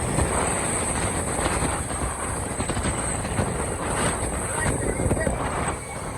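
A vehicle running, with a dense clattering rattle over a low rumble that eases off near the end.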